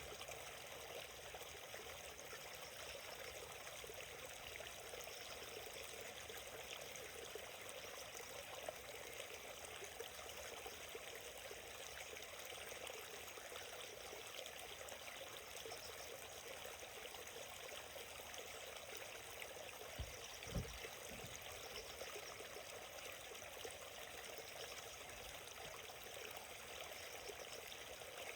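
Small forest stream flowing and trickling steadily. A couple of soft, low thumps come about two-thirds of the way through.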